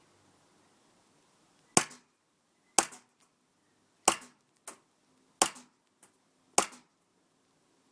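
Airsoft Glock pistol firing single shots on semi-automatic: five sharp cracks about a second apart, each followed a moment later by a fainter knock.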